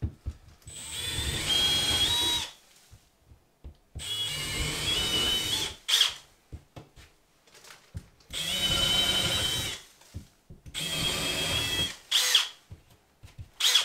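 Power drill with a 1/2-inch bit boring holes through 1/2-inch drywall: four separate runs of about two seconds each, the motor's whine rising in pitch as it speeds up. A few short sharp knocks come between the runs.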